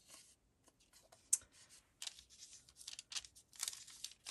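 Paper scraps rustling and crinkling in short bursts as they are handled, with one sharp click just over a second in.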